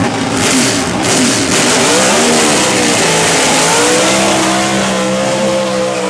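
Pro Stock Chevrolet Cobalt's naturally aspirated V8 at high revs during a burnout, the rear tyres spinning. The engine pitch climbs about two seconds in, then holds high and steady.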